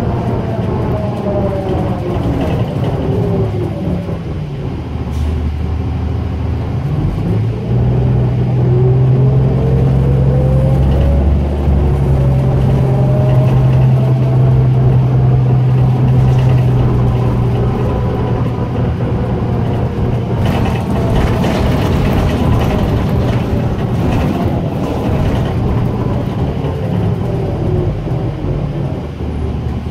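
Inside a 2004 New Flyer DE40LF hybrid bus under way: the Allison E Drive's whine falls as the bus slows in the first few seconds, rises as it speeds up again about seven seconds in, and falls once more near the end. Under it runs the Cummins ISL diesel's steady drone, loudest in the middle.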